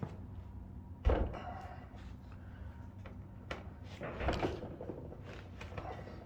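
Heavy handling of a bare V6 outboard engine block as it is stood upright on the bench: a loud heavy thud about a second in, a second knock about four seconds in, with light clicks and scrapes between.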